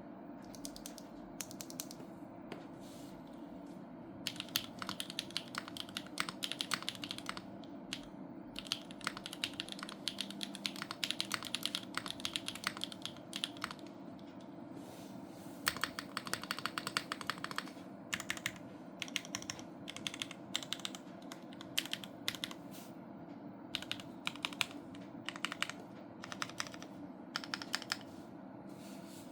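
Typing on a Neo80 mechanical keyboard with stock Gateron Puresky linear switches, gasket-mounted with case foam only, and Kkb Retro Mixlight keycaps. It comes in runs of fast keystrokes with short pauses between them.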